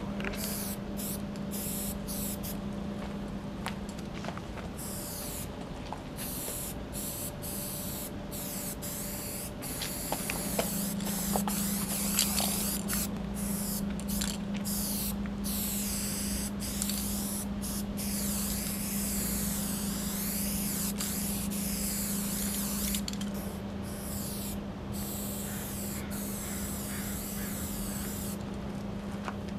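Aerosol spray paint can hissing in runs of a second or two, stopping and starting many times as lines are sprayed, over a steady low hum.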